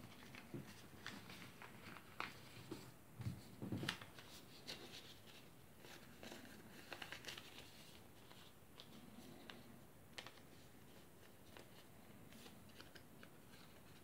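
A sheet of origami paper being folded and creased by hand, with faint rustling and crinkling that is busiest in the first half. A couple of soft thumps come about three to four seconds in.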